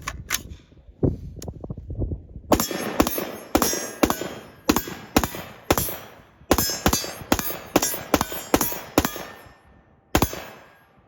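Del-Ton AR-15 rifle in 5.56 fired semi-automatically: a string of about fifteen shots at roughly two a second, each with an echoing tail, then a short pause and one last shot near the end.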